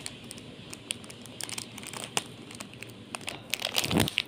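Plastic snack-bar wrapper crinkling and crackling as small hands pull it open, the crackles coming thicker near the end. A dull thump about four seconds in is the loudest sound.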